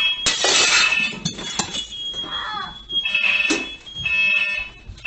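Household smoke alarm sounding during a house fire, giving repeated high-pitched beeps. A loud burst of noise comes about a third of a second in.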